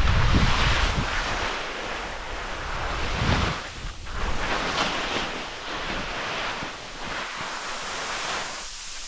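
Skis scraping and hissing through soft, heavy spring snow in a series of turns, each turn a swell of hiss, with loose snow sliding beside them. Wind buffets the microphone with a low rumble, strongest in about the first second.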